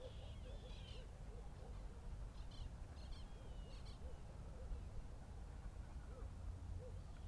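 Birds calling: short, low arched notes repeated irregularly throughout, with a few thin, higher chirps, over a low steady rumble.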